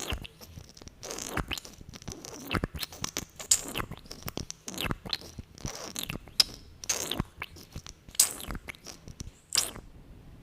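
Close-miked sticky, wet lip and mouth sounds from glossed lips: irregular smacks and clicks, a few every second.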